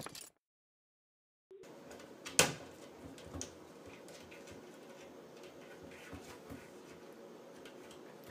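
After a second and a half of silence, a cat pawing at a kitchen cabinet door: the door gives one sharp knock about two and a half seconds in, then a few soft clicks and taps against its frame over faint room noise.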